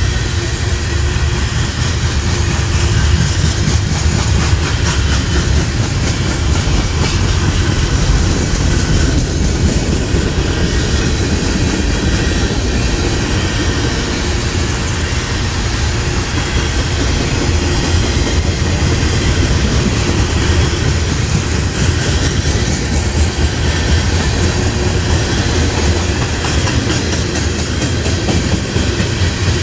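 Freight cars of a slow-moving manifest train rolling past: a steady rumble of steel wheels on the rails with clicking over the rail joints.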